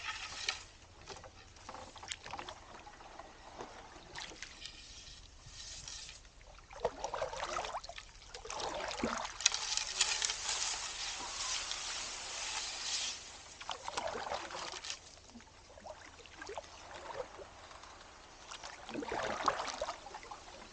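Canoe paddled through a narrow, grassy creek: paddle strokes swishing and dripping in the water, and grass and reeds brushing along the hull, with a longer, louder rustling hiss from about eight to thirteen seconds in.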